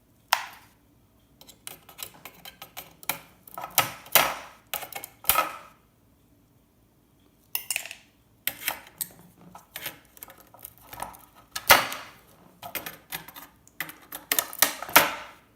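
Irregular clicking, snapping and clattering as small electronic components are pried off a circuit board, with a pause of about a second and a half near the middle.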